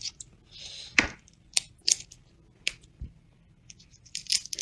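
Thin shell of a cooked crayfish being crushed and peeled by hand: a series of short, sharp crackles and snaps, with a quick cluster of them near the end.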